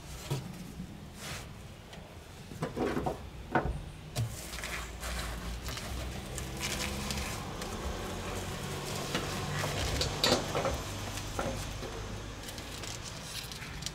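Rustling of foil-faced foam insulation being handled, with scattered clicks and knocks.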